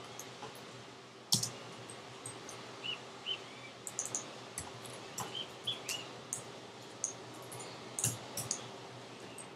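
Scattered computer keyboard keystrokes and mouse clicks, a few isolated taps at a time, over a faint steady hum.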